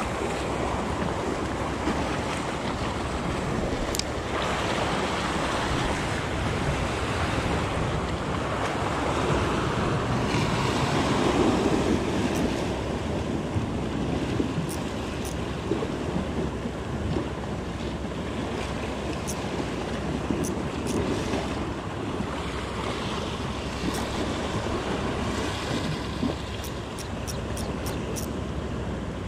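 Sea surf washing and breaking against shore rocks, with wind on the microphone; the surf swells louder about eleven seconds in. A quick run of faint ticks near the end.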